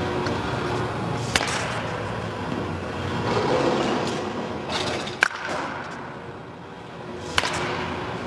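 Wooden baseball bat hitting balls during batting practice in an indoor cage: three sharp cracks, the loudest about five seconds in, over a steady background hum of the practice hall.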